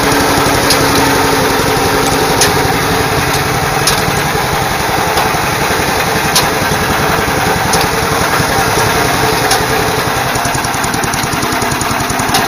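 Honda petrol engine driving a trolley-mounted road dust blower, running steadily at speed under a loud rush of air from the blower. A few sharp ticks sound over it at irregular intervals.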